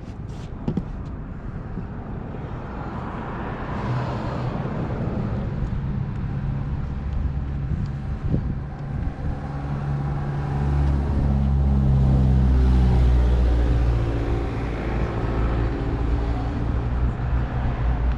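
Motor vehicle engine running close by with a steady low hum, growing louder through the middle and easing off near the end, over passing road traffic.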